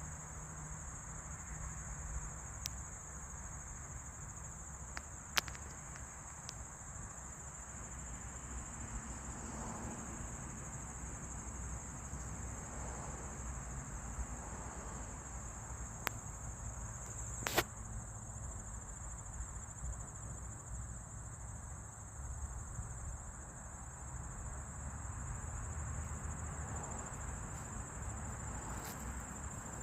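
Steady high-pitched chorus of insects, with a few brief sharp clicks, the loudest about 17 seconds in.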